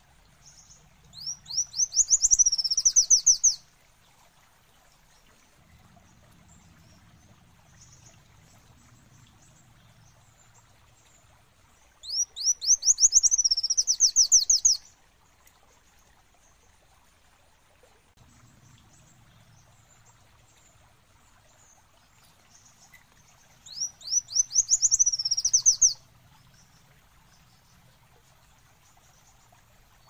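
Kolibri wulung sunbird singing: three bouts of rapid, high, sweeping notes running into a fast trill, each about two and a half seconds long, coming roughly every eleven seconds.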